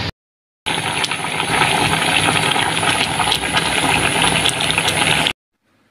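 Wok of coconut-milk vegetable soup (sayur lodeh) bubbling on the stove: a steady hiss with many small pops from the bubbles. It starts after a brief gap and cuts off suddenly near the end.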